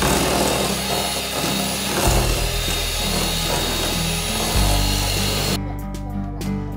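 Electric hand mixer running with its beaters whisking in a stainless steel bowl, a steady whirr that cuts off abruptly near the end. Background music with a bass line plays underneath.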